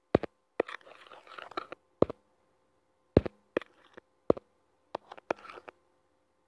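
About eight sharp clicks, unevenly spaced, with short soft breathy hissing between them, close to the microphone.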